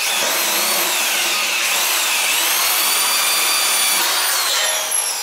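Corded electric drill driving a self-drilling screw into galvanized steel C-channel. The motor starts abruptly with a loud whine. Its pitch sags about two seconds in as the screw's drill point cuts into the steel, then rises and holds, and falls away near the end as the drill winds down.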